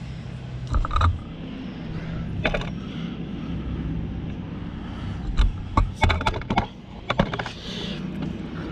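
Hand tools clicking and knocking on metal parts of a vehicle rear-bar swing arm as a pin is worked into place: a few single clicks, then a quick run of them about five to seven seconds in, over a steady low hum.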